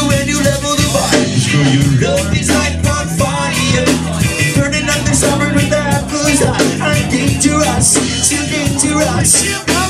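Live punk-reggae band playing: drum kit, electric guitar and bass, with a lead vocal sung over them.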